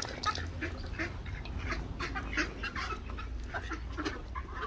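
Ducks and geese calling together, a quick, irregular run of short quacks and honks over a low, steady rumble.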